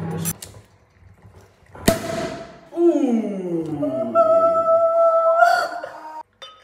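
A champagne cork pops out of the bottle about two seconds in, followed by a short fizzing hiss. After it comes music with falling, sliding notes and then a steady held note.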